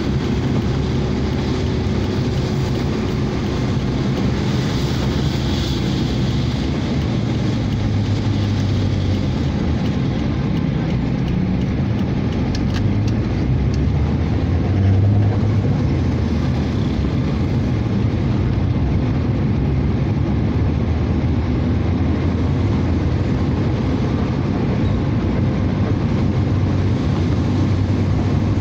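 Steady in-car noise while driving on a wet road: engine running and tyres on wet tarmac, with a brief swell about halfway.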